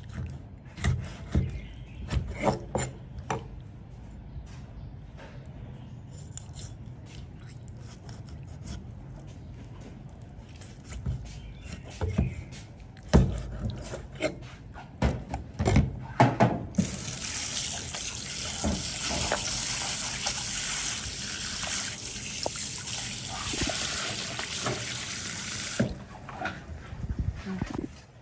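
Scattered knocks and clattering of things being handled at a sink, then a water tap running steadily for about nine seconds before it is turned off near the end.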